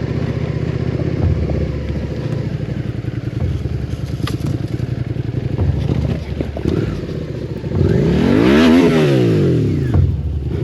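Suzuki SV650's V-twin engine running at low revs over a rough forest road, with occasional knocks and clatter. Near the end it revs up and drops back down.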